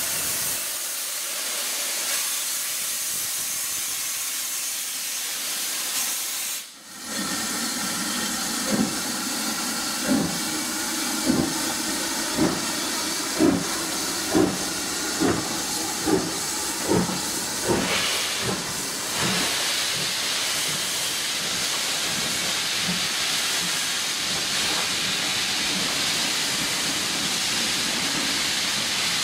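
Steam locomotive departing, wrapped in a loud, steady hiss of escaping steam. About eight seconds in its exhaust beats begin, roughly one a second and slowly quickening, and after about ten seconds they die away under the hiss as the coaches roll past.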